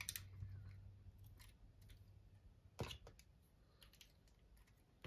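Faint clicks and taps of plastic Lego bricks being handled on a tabletop, with one sharper click a little under three seconds in; otherwise near silence.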